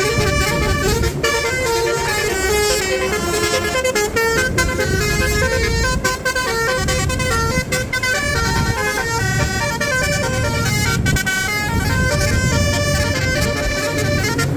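Bus basuri horn, a multi-tone telolet horn, playing a melody of short stepped notes over the low rumble of the engine and road.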